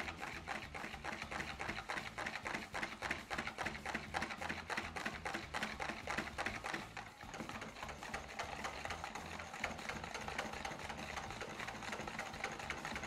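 Metal balloon whisk beating a very thick, stiff mayonnaise in a bowl by hand: quick, even strokes of wire clicking and scraping against the bowl, several a second. The emulsion holds firm and will not break even with extra oil.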